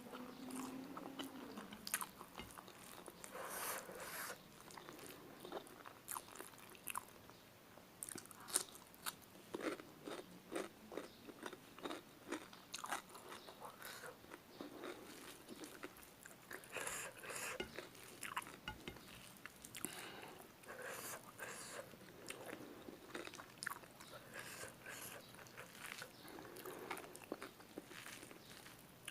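Chewing and biting on spicy chicken feet: an irregular run of crunches and small sharp clicks.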